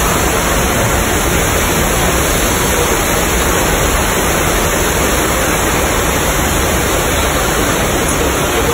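Loud, steady rush of a torrent of water from a staged flood effect, the water gushing and spraying across the set.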